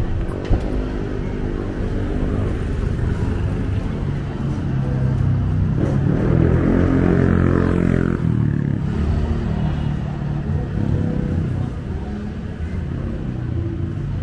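Street traffic with a vehicle engine passing close, growing louder to a peak about seven seconds in, then fading back to a steady rumble.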